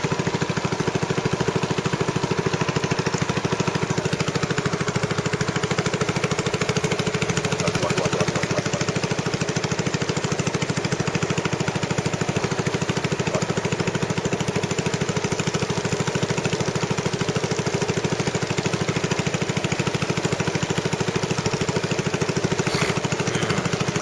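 Small boat's engine running steadily at an even speed.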